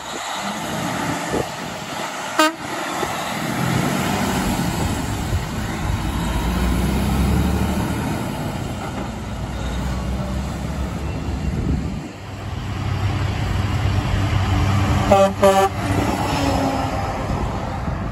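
A Freightliner 114SD's Hadley H02000FP air horn gives one short toot, followed by the truck's diesel engine pulling away through a turn. After a cut, a Western Star 4964EX's twin Grover 2000 air horns sound two short blasts over its diesel engine.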